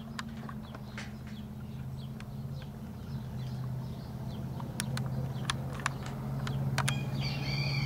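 Outdoor ambience: a steady low hum with scattered sharp ticks, and a bird's warbling chirps starting near the end.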